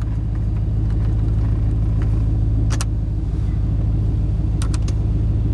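1991 Chevrolet Silverado's 5.7-litre V8 idling steadily, heard from inside the cab as a low even hum. A few light clicks come about three seconds in and again near the end, from the climate-control slider and buttons being worked.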